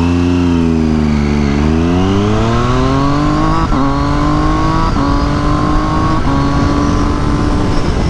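Triumph Daytona 675R's three-cylinder engine accelerating hard away from a stop, its pitch climbing steadily, with three quick upshifts about a second apart, each a brief dip in pitch before it climbs again. Wind rush runs under the engine.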